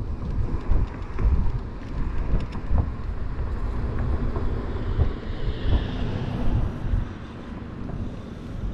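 Wind buffeting the microphone of a rider on a fast-moving Kaabo Mantis electric scooter, with road and traffic noise underneath; the buffeting eases near the end.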